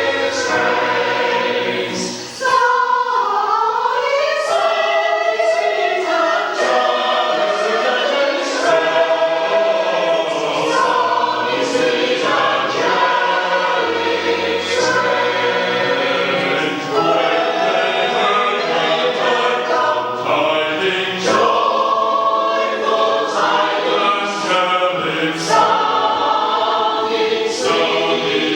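Community choir singing a traditional Cornish chorus carol, many voices together with a short breath between phrases about two seconds in.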